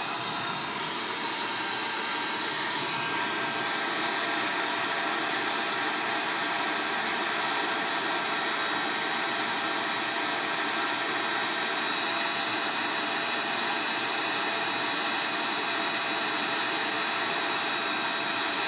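Hot air rework station blowing a steady hiss onto the board, reflowing solder to seat a replacement charging port.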